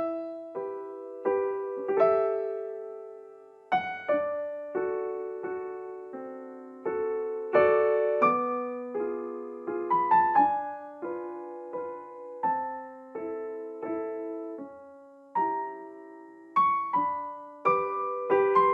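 Background music: a solo piano playing a slow, gentle melody of separate notes and chords that fade after each strike.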